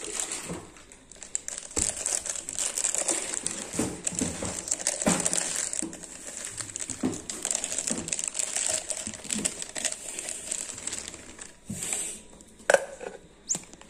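Plastic packaging bag crinkling irregularly as it is handled around the mixer grinder's jar, with a couple of sharp clicks near the end.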